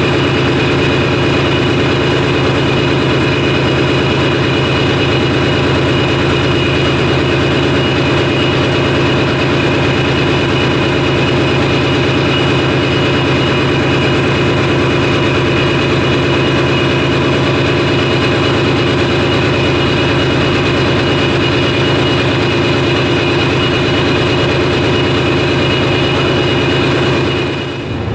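Ship's main diesel engine running steadily under test, a loud, dense engine-room drone with a fast even beat. The level drops about a second before the end.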